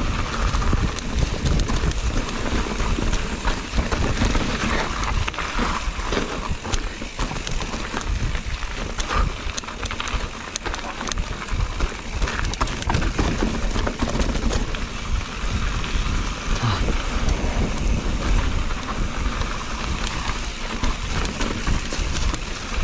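Mountain bike riding down a dirt trail: wind rumbling on the microphone, tyres rolling over dirt, leaves and stones, and frequent sharp knocks and rattles as the bike goes over bumps.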